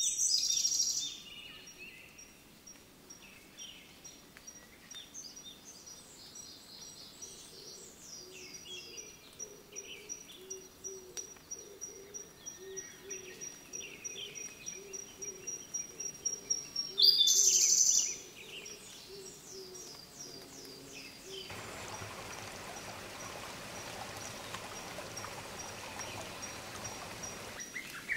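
Woodland birds calling and singing: many short high chirps and quick downward trills, with two loud high calls, one at the start and one about two-thirds of the way in. Under them a thin steady high tone and a low note repeated about twice a second; near the end a steady rushing noise joins in.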